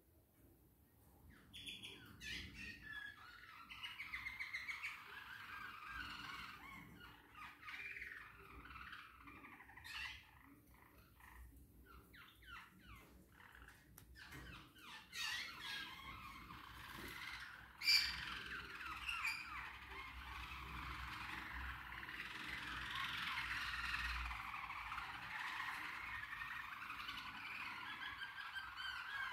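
Caged canaries chirping and singing: scattered short chirps at first, building to continuous warbling song in the second half. A sharp tap stands out about 18 seconds in.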